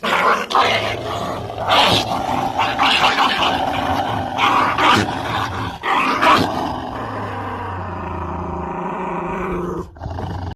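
A dog growling, with loud irregular bursts for about the first six seconds, then a quieter, steadier sound.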